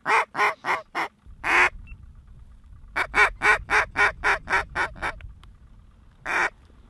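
Duck call blown close by, imitating a mallard hen: a quick run of short quacks, about four a second, ending in a longer quack; then a longer run of quacks and another single long quack near the end.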